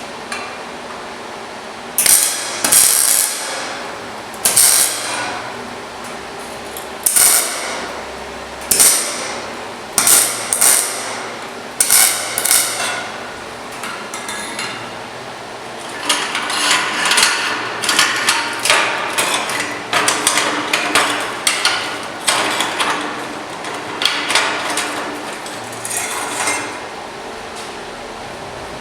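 Sharp metal-on-metal knocks, like a hammer striking steel, coming singly or in pairs every second or two, then a quicker run of lighter clinks and knocks in the second half.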